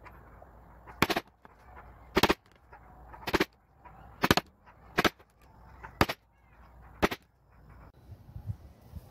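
A mallet driving a hand-held leather hole punch through a leather strip into a wooden board: seven sharp knocks about a second apart, a couple of them doubled.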